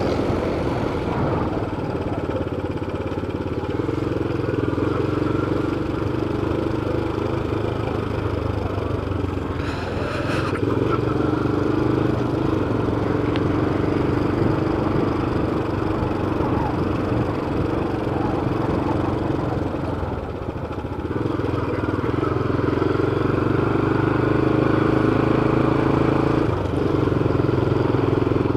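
Motorcycle engine running under way. The note changes about 10 seconds in, then eases off briefly around 20 seconds before pulling back up.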